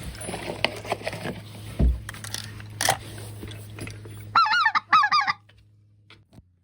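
Specklebelly goose (greater white-fronted goose) calling: two quick bursts of high, rapidly wavering yodelling notes, each about half a second, over a stretch of rustling and scattered clicks.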